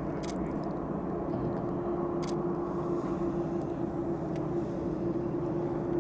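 Boeing 787-8's GEnx-1B jet engines at taxi power, heard from a distance as a steady rushing hum with a constant low-pitched drone running through it.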